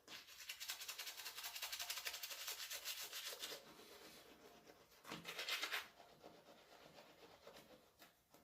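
Toothbrush bristles scrubbing teeth in quick back-and-forth strokes for about three and a half seconds. After a quieter pause, a second short burst of brushing comes about five seconds in.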